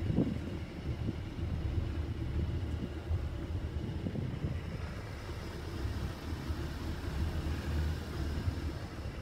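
Low, steady rumble of wind buffeting the microphone aboard a small boat on open water.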